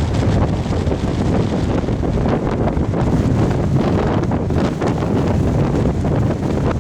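Strong gusty wind buffeting the microphone, a loud, steady low rumble with fluttering.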